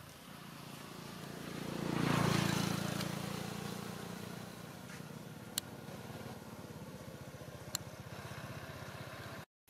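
A passing motor vehicle's engine that grows louder to a peak about two seconds in, then fades slowly. Two short, sharp clicks sound around the middle, and the sound cuts off suddenly near the end.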